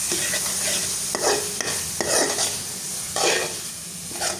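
Masala of spices and oil sizzling as it fries in a kadhai, with a spoon scraping and stirring it in several strokes.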